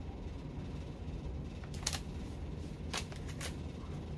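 Pages of a glossy magazine being handled and turned, with about three short, crisp paper rustles in the second half over a low steady background hum.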